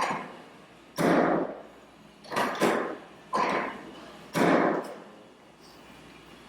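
A series of about six sharp thumps, roughly one a second, from a chiropractic adjustment on the treatment table, each dying away quickly.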